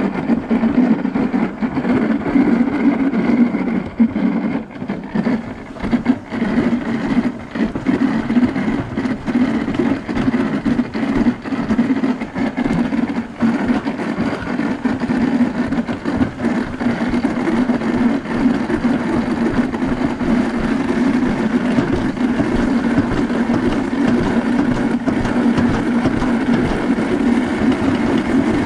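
Toboggan sled rolling fast down a stainless-steel trough track: a steady, loud rumble with a low hum, broken by frequent short clicks and knocks as the sled runs over the track's joints and bumps.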